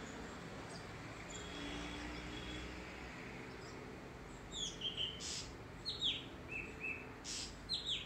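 White-bellied drongo calling: from about halfway in, a quick run of clear whistled notes that slide downward, broken by two short harsh notes.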